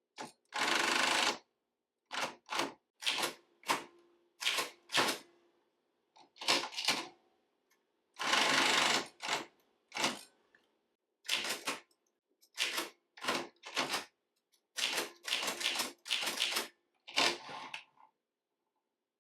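Typewriter keys being struck one at a time in irregular clusters of sharp clacks. Two longer, noisier sounds of about a second each come about a second in and again around eight seconds in.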